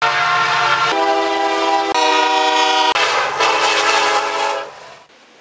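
Diesel locomotive air horn sounding a series of long blasts, the chord shifting about every second, the last blast longest before it fades out.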